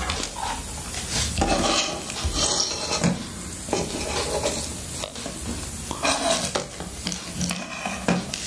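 Handling noise from a Raspberry Pi 3 board and its loose AV cable wires being picked up, turned over and moved about on a wooden desk: irregular rustles and small knocks.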